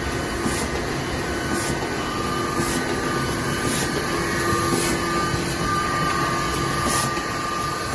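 Smyth F180 automatic book sewing machine running, a steady mechanical clatter with a short hiss recurring about once a second, one machine cycle after another.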